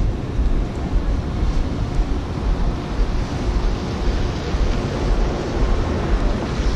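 Wind buffeting the camera microphone: a loud, uneven low rumble with no steady tone.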